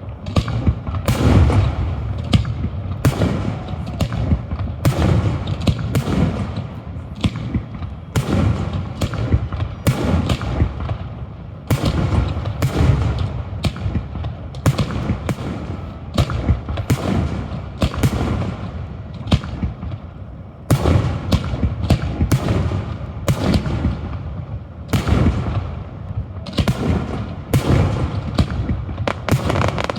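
Aerial fireworks shells bursting in quick succession at a public display: booms about one to two a second, overlapping into a constant low rumble. Near the end there is a rapid run of sharp cracks.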